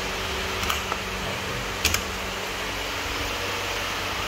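A steady machine hum from the industrial biscuit mixer's control cabinet and drive, with two short metallic clicks at the cabinet about one and two seconds in as its latch is worked.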